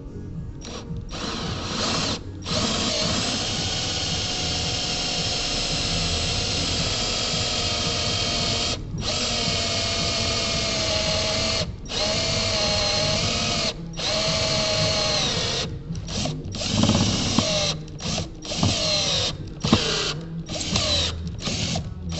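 Electric drill boring a hole into a carburettor body for a vacuum fitting. The motor whines in long runs, its pitch sagging as the bit bites, then starts and stops in short bursts near the end as the hole goes through.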